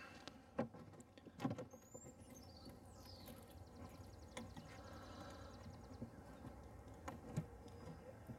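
Wooden beehive frames being handled and pressed together by hand: a few light wood-on-wood knocks and clicks, the loudest about a second and a half in, with faint scraping between.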